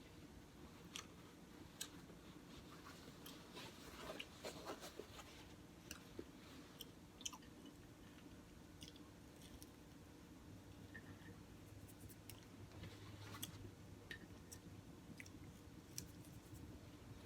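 Quiet close-up chewing of a bacon, egg and cheese croissant sandwich, with scattered small mouth clicks and smacks. A faint low hum comes in about ten seconds in.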